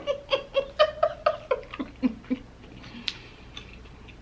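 A woman giggling: a run of short breathy laughs at about four a second, on one steady pitch, fading out after about two and a half seconds.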